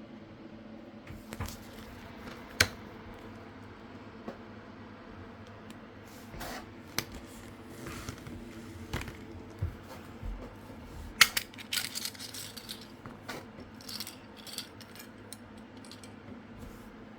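Small hard objects being handled, as in unboxing: scattered sharp clicks, taps and brief rattles, busiest near the end, over a steady background hum.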